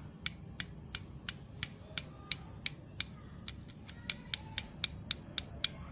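Connecting rod of a Honda Activa 5G engine, opened on the bench, worked by hand on the crankshaft: a sharp metallic click about three times a second, a little quicker near the end, the sound of the play at the rod's joint.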